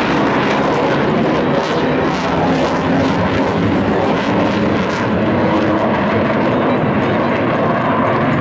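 Military fighter jets flying past, their jet engines making a loud, steady roar with no clear rise or fall.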